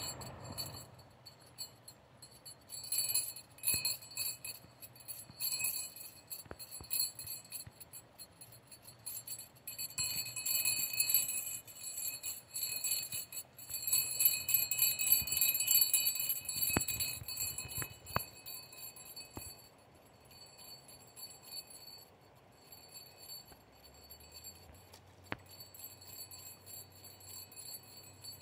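A small metal jingle bell jingling on and off in irregular shakes, busiest midway and fading to faint tinkles after about twenty seconds.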